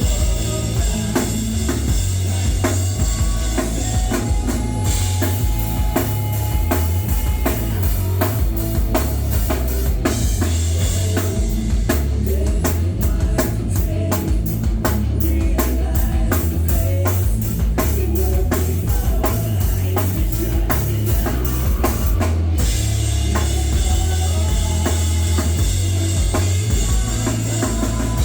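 Live rock band playing an instrumental passage at full volume: a drum kit with bass drum and snare over heavy bass and guitars. Partway through, the high sizzle drops away and the even drum strokes stand out on their own, then the full band comes crashing back in about two-thirds of the way through.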